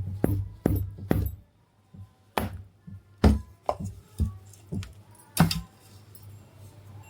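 Irregular sharp knocks and metal clinks of hand tools on a ceiling fan's parts. There are about a dozen strikes, with a short pause about a second and a half in.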